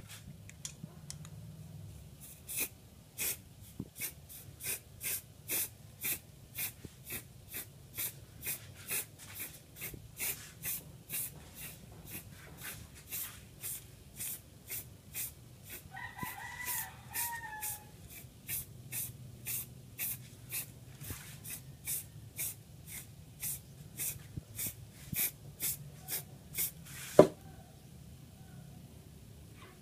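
Spray paint can being shaken, its mixing ball clacking in a steady rhythm of about two strokes a second. A rooster crows once in the middle, and a single louder knock comes near the end.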